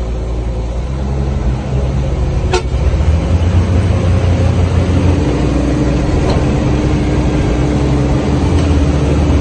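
Heavy diesel engines running hard under load, getting louder about two and a half seconds in. A steady higher tone is held for about four seconds from around five seconds in.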